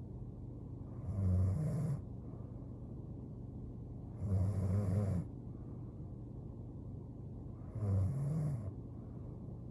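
A young woman snoring in her sleep: three snores about three and a half seconds apart, each lasting about a second, over a steady low hum.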